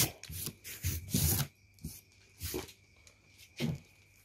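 Irregular rubbing and scraping strokes as the work surface is wiped and cleared: a quick run of strokes in the first second and a half, then a few single ones spaced about a second apart.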